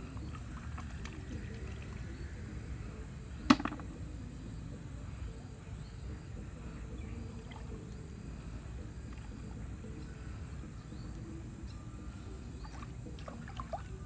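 Small splashes and knocks from bamboo tubes being handled in shallow pond water, over a steady low outdoor rumble, with one sharp knock about three and a half seconds in and a few lighter clicks near the end.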